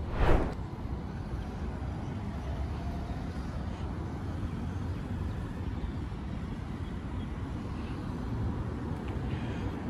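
City road traffic: a steady rumble of cars driving around a roundabout. A brief loud hit sounds about a quarter second in.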